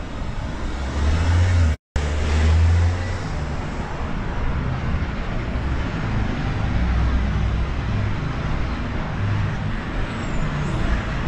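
Street traffic: a steady roar of passing cars with low engine rumble, loudest in the first few seconds. The sound cuts out completely for a split second just before two seconds in.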